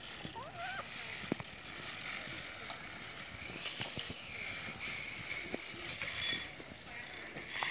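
Zipline trolley pulleys running along the steel cable: a high whirring whine that grows louder over the second half as a rider comes in, with a few faint clicks.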